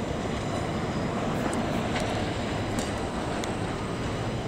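Train running along the tracks: a steady rumble with a few faint sharp ticks.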